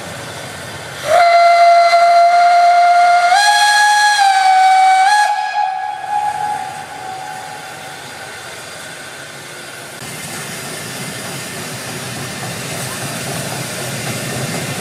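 Whistle of the Rhaetian Railway steam locomotive 'Heidi' blowing one long blast of about five seconds, its pitch stepping up a little partway through before it fades. Afterwards the train's steady running noise slowly grows louder.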